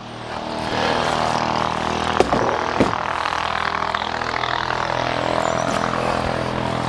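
A nearby motor vehicle's engine running loudly and steadily, swelling up over the first second and then holding. Two sharp knocks of gear being handled come about two and three seconds in.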